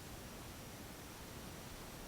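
Faint steady hiss of background noise, room tone with no gong ringing.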